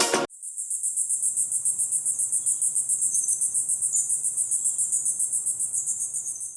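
An Android 14 Go phone tone imitating crickets: a high, rapidly pulsing chirring trill that holds steady for several seconds and fades a little near the end.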